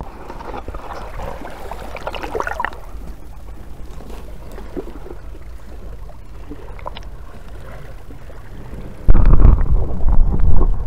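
Sea water lapping faintly at the camera in a shallow rocky gully, then from about nine seconds in a loud, muffled rumbling and churning as the camera goes under the water.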